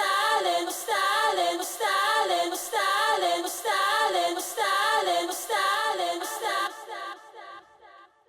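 Minimal techno breakdown: a short, wavering choir-like vocal phrase loops about once a second with no kick drum or bass, then fades away over the last couple of seconds.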